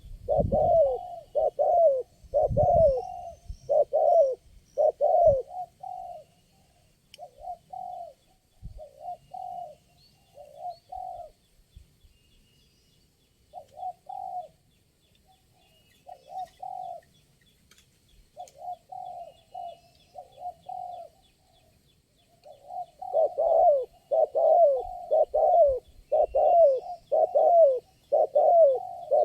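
Spotted doves cooing: a run of repeated coo phrases, loud and close together at first, softer and more spaced out through the middle, then loud and fast again near the end. Faint high chirps of small birds sit underneath.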